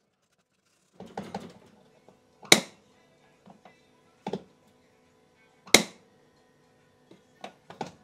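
Plastic soap-dispenser lid of a Miele dishwasher being snapped shut and sprung open, its repaired latch catching: two sharp, loud clicks about two and a half and nearly six seconds in, with softer clicks and handling noise between.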